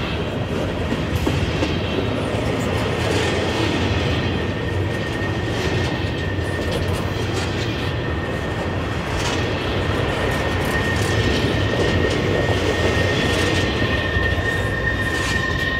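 Model freight cars rolling past on the layout's track: a steady rumble with clickety-clack from the wheels. About two-thirds of the way through, a thin high wheel squeal comes in and grows stronger as the cars round the curve.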